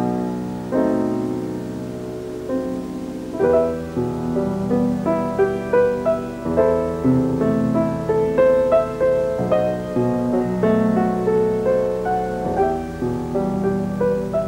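Solo piano accompaniment: slow held chords at first, then a moving line of notes struck about every half second from about three and a half seconds in.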